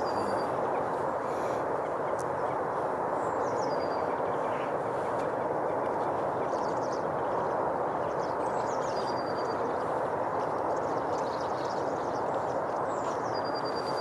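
Steady outdoor background noise with no breaks, and a bird's short call, a quick falling note that settles on a thin high whistle, heard four times a few seconds apart.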